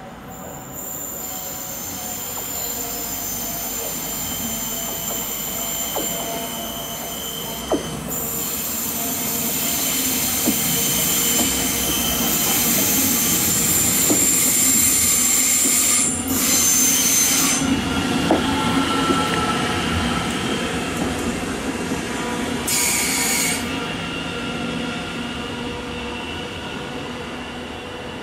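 S-Bahn electric multiple units (Talent 2) running on the tracks, their wheels squealing high-pitched on the rails, with a few sharp clicks. The sound grows to its loudest about halfway through and then fades.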